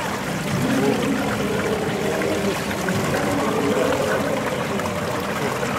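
Water trickling and running steadily through a fossil-panning trough.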